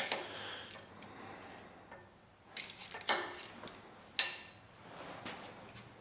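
Metal hand tools (locking pliers, calipers) clinking and being set down on the steel sawmill frame: a few sharp metal clinks spread over about two seconds in the middle, with quieter handling noise around them.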